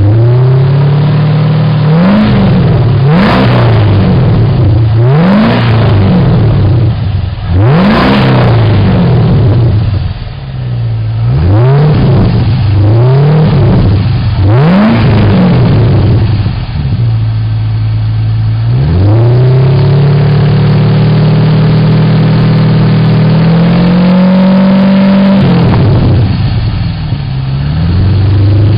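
Holden Commodore's LS1 5.7 litre V8 revved through a catback exhaust (3-inch single pipe, straight-through box with dual 2.5-inch outlets, twin 4-inch tips, standard headers). About seven quick throttle blips each rise and fall back to idle, then comes a longer rev, then one held for a couple of seconds before dropping back.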